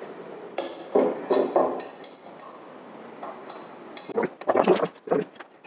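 Small metal clinks and knocks as an Allen key is worked against the aluminium T-slot bed and steel frame of a CNC 3018 mill kit, to loosen the bed's bolts and pull it straight: a cluster of taps about a second in and another near the end.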